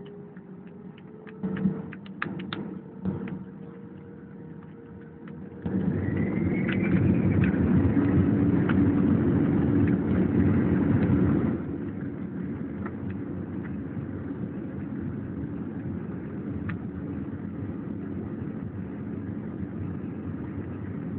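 Airbus A320 jet engines heard from inside the cabin during takeoff. A quieter stretch with a slowly rising engine tone and a few clicks gives way, about five and a half seconds in, to a sudden loud roar as the engines come up to takeoff thrust. The roar drops to a steady, lower rumble about halfway through.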